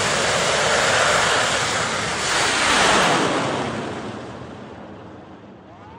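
Thai bang fai saen, a large homemade black-powder rocket, lifting off and climbing away. Its loud rushing noise holds for about three seconds, then fades steadily as the rocket recedes into the sky.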